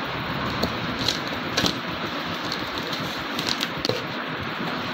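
Cardboard carton being slit open along its packing tape and handled: scattered scratches and clicks over a steady background hiss.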